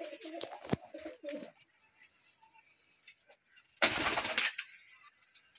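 Domestic pigeons cooing in low, broken calls for the first second and a half. Just before four seconds in comes a short, loud clatter of wingbeats as a pigeon takes off from its perch.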